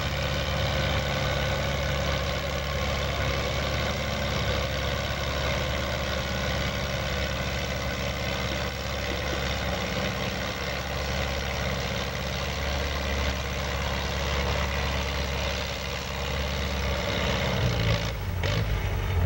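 Antique farm tractor engine pulling a weight-transfer sled under load, running steadily at an even pitch. A few knocks come near the end.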